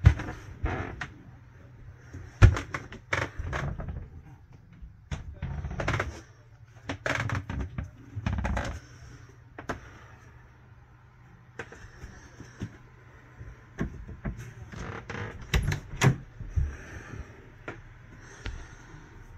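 Irregular knocks, thumps and clicks of wooden cabin doors and handheld-camera handling in a small yacht cabin, the sharpest right at the start and about two and a half seconds in, over a steady low hum.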